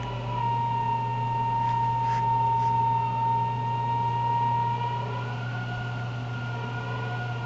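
Steady high-pitched whistle over a low steady hum, the whistle wavering only slightly in pitch; a second, higher whistle tone joins about five seconds in. The uploader takes it for strong whistling wind.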